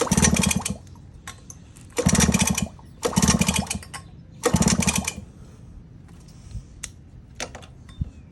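Suzuki Quadmaster 50's small two-stroke engine cranked over four times with its spark plug out, each burst about half a second of fast even chugging that does not fire, as a test for spark. A few light clicks follow near the end.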